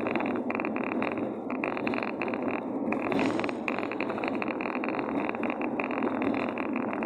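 Steady road and wind noise of a car driving along a highway at speed.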